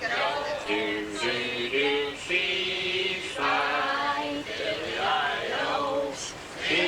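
A group of men and women singing together without instruments, holding notes and stepping from one note to the next.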